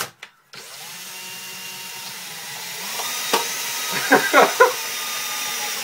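Power drill turning a vise's lead screw, its motor whining steadily and rising slightly in pitch as the load builds. A sharp click a little after three seconds in, then a few loud creaking crunches around four seconds in as the tin can buckles between the jaws.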